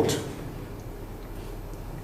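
Pause in a man's speech: a steady low hum and faint background noise, with the end of his last word fading out at the start.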